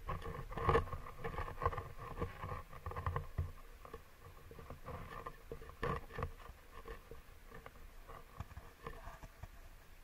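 Irregular knocks, taps and scraping of an underwater camera and its pole being handled and lowered in an ice hole. They are busiest in the first three seconds, with one sharp knock about six seconds in.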